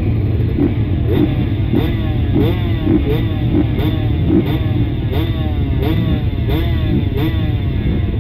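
Motocross motorcycle engines running hard, heard from the rider's helmet, with a steady low rumble and an engine note that falls again and again, about once every half second or so.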